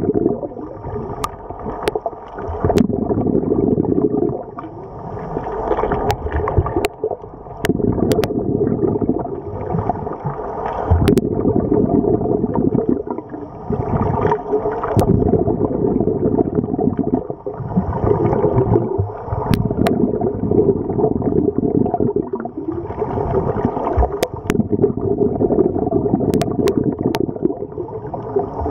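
Scuba regulator breathing heard underwater: bubbling exhalations come in cycles every few seconds, with brief lulls between breaths. Scattered sharp clicks run through it.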